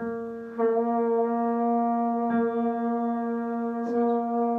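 Double French horn playing a long held note at a steady pitch. It breaks off briefly at the start and comes back in about half a second later.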